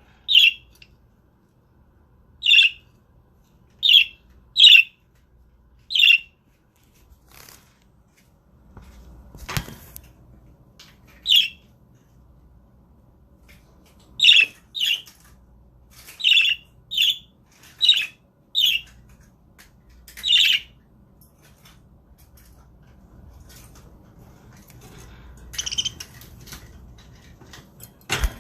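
Budgerigars calling in short, sharp single chirps, about a dozen spread through, one to two seconds apart, with quieter gaps between groups. There is a brief rustle or knock about ten seconds in.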